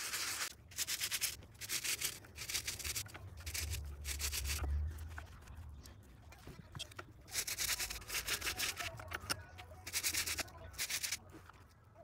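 A stiff plastic-bristle scrub brush scrubs a wet, soapy seatbelt webbing in quick back-and-forth strokes. The strokes come in several bursts with short pauses between them.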